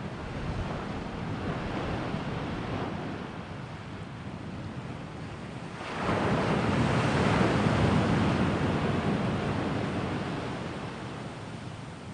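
Sea waves washing in, with a larger wave breaking about six seconds in, the loudest moment, then slowly dying away.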